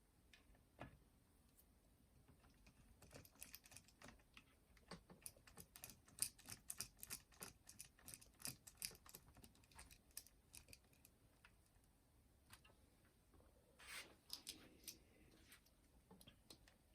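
Faint, irregular small clicks and taps from hands handling the boombox's parts. They come in a busy run through the middle, then a short cluster near the end.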